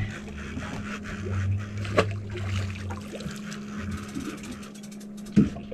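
Steady low hum of a boat engine running, with wind and water noise. There are two sharp knocks, one about two seconds in and a louder one near the end.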